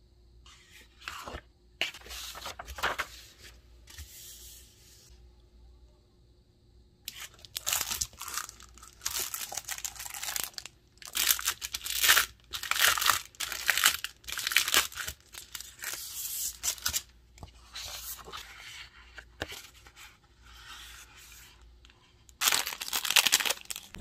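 Paper sheets and the plastic wrap of a laminating-film pack being handled, rustling and crinkling in irregular bursts.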